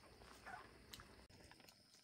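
Near silence: faint room tone with a few soft, light clicks.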